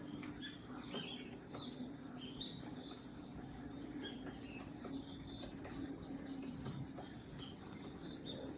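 Birds calling: short, scattered chirps and quick gliding notes, with a steady low hum underneath.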